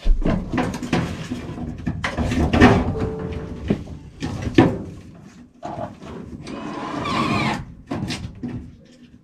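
Sheet-metal furnace plenum being tugged and worked by hand: irregular knocks, clanks and scraping rubs of thin metal, with a longer scrape about seven seconds in.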